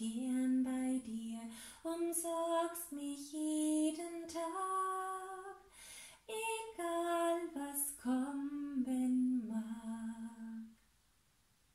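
A woman singing a German hymn about God as a shepherd, unaccompanied, in held notes. She stops about eleven seconds in.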